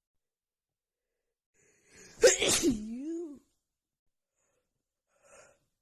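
A person's allergy sneeze: a short faint intake of breath, then one sharp loud burst trailing off into a voiced sound that dips and rises in pitch. A faint short noise comes near the end.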